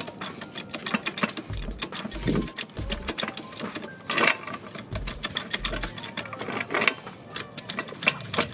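Duralast 2-ton hydraulic floor jack being pumped to raise a car: a busy run of sharp metallic clicks and rattles, with dull low thumps every second or so.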